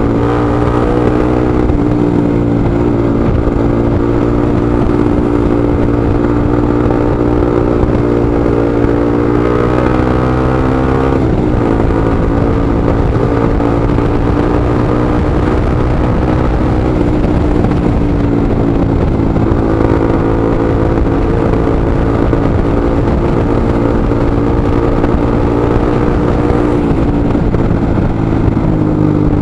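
Motorcycle engine running steadily at low speed in traffic, its pitch rising briefly and then dropping about eleven seconds in, and rising again near the end.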